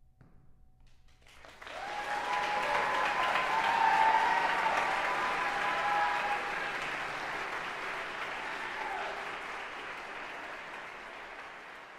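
Audience applauding and cheering at the end of a performance. The applause starts suddenly about a second and a half in, with shouted cheers on top, and slowly dies away toward the end.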